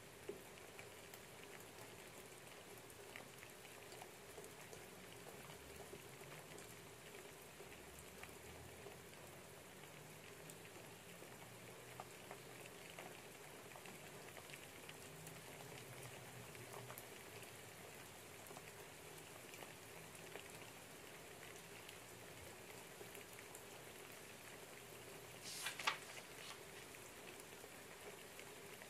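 Light rain pattering steadily, heard faintly, with a brief louder rustle near the end.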